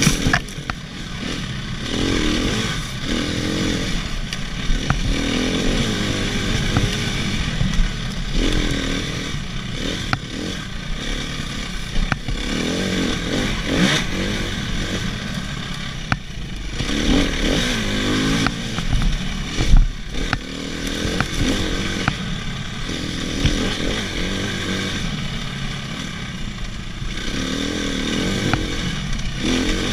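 Dirt bike engine running under load, its revs rising and falling again and again while riding, with occasional knocks and rattles from rough ground.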